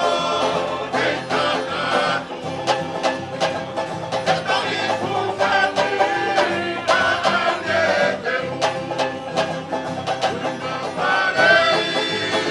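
Tau'olunga dance music: voices singing over strummed plucked string instruments in a steady strumming rhythm.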